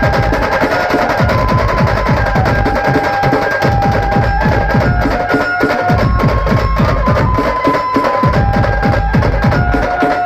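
Banjo-party band music: a melody of held notes moving step by step over fast, dense drumming.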